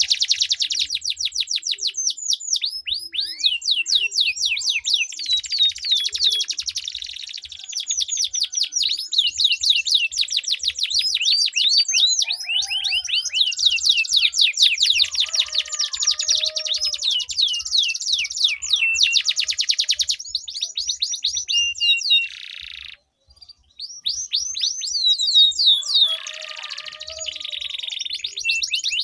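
Domestic canary singing long rolling trills, each made of fast repeated notes that sweep downward in pitch, with one short break about three quarters of the way through.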